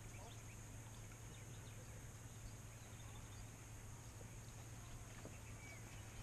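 Near silence: a faint steady low hum and hiss of outdoor background, with a few faint short sounds scattered through.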